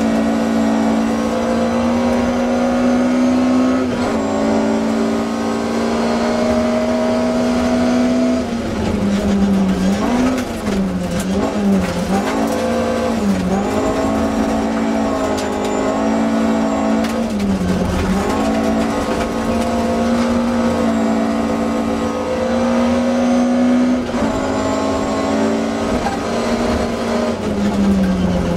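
Inside the cabin of a BMW 320i E30 Group H rally car at speed on gravel: the engine is held at high revs, its pitch dropping and climbing again several times in a row about halfway through and once more near the end as the driver lifts and changes gear for corners, over constant gravel and tyre noise.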